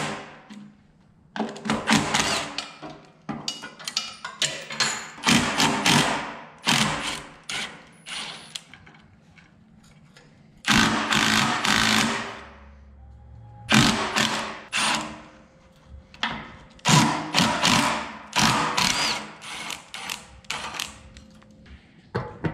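Hand tools working on metal fasteners during removal of a forklift's fuel tank: repeated short bursts of rapid metallic clicking and knocking, with pauses between them.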